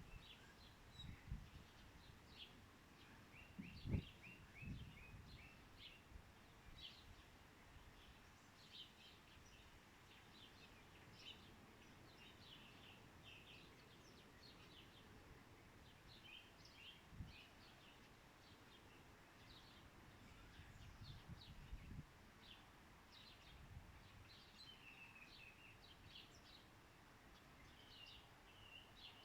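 Several small birds chirping and twittering on and off, with short repeated-note trills among the calls. A few low thumps break in, the loudest about four seconds in.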